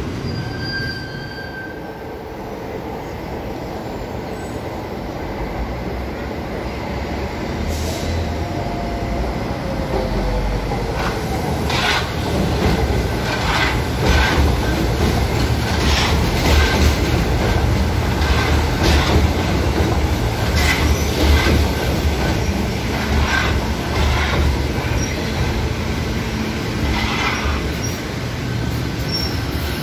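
São Paulo Metro Line 1 train running on elevated track: a low rumble that swells from about ten seconds in, with sharp wheel clicks over the track about once a second.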